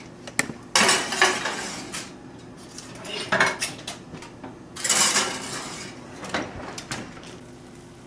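Kitchen clatter of baking dishes and metal being handled: several sharp clinks and knocks, with two longer scraping bursts about one second and five seconds in.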